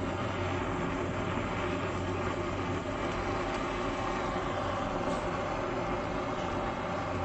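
Mastrad refillable butane kitchen blowtorch burning with a steady hiss, its flame browning the sugar top of a crème brûlée.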